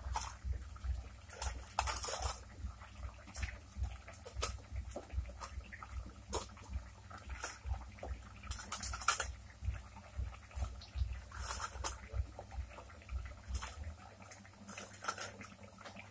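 Fried gatte (gram-flour dumplings) dropped one at a time into a kadhai of boiling curry, each landing with a short wet plop or splash at irregular intervals, over a steady low rumble.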